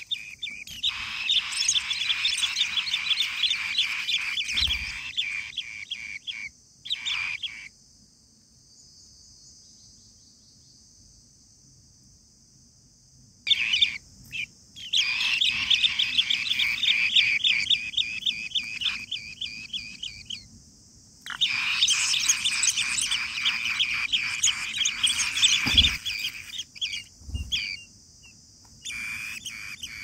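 Asian green bee-eater nestlings calling in the nest: rapid high chirping in bursts of several seconds, with pauses between.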